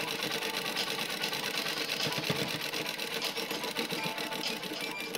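Sewing machine running steadily at speed, its needle strokes making a fast, even rattle as it stitches a pleated fabric frill onto a blouse neckline.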